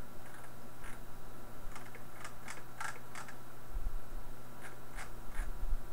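Irregular sharp clicks of a computer mouse, about nine spread over a few seconds, over a steady low electrical hum.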